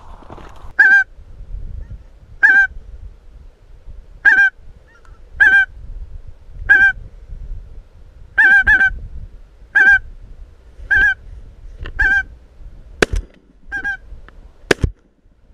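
Geese honking, a dozen single calls about a second apart, with two sharp clicks near the end.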